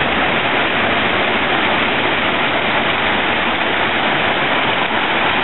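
Hot-spring water cascading over rocks into a pool: a steady rushing.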